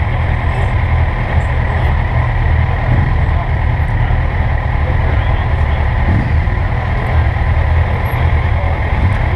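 Honda Gold Wing's flat-six engine idling steadily.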